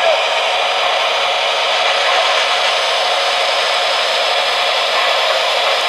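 Steady hissing whoosh from a Lionel PRR S2 steam turbine O-gauge model locomotive while it puffs smoke from its stacks.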